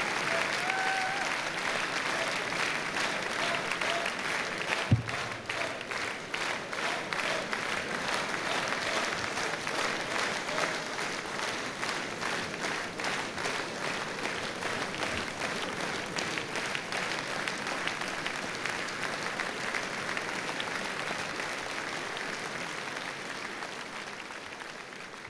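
Large audience applauding, the clapping falling into a regular unison beat for a stretch in the middle, with a single thump about five seconds in. The applause dies down near the end.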